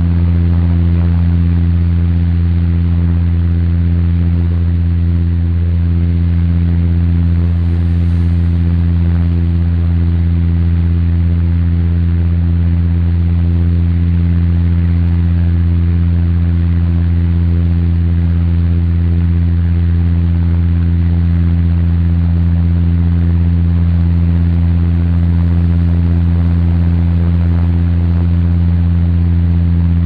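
Steady engine drone of a high-wing airliner in cruise, heard inside the passenger cabin: a deep, even hum with several steady tones over a constant rush of airflow.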